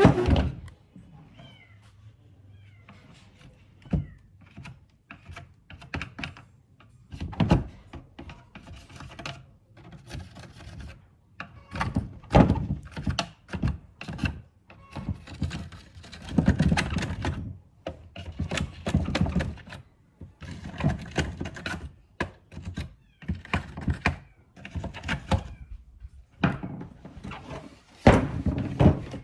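Irregular knocks, clicks and scraping of metal parts and tools being handled.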